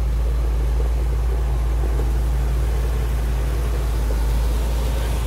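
Caterpillar 140K motor grader's diesel engine running steadily under load as its blade spreads crushed rock out to the side, a deep, even drone.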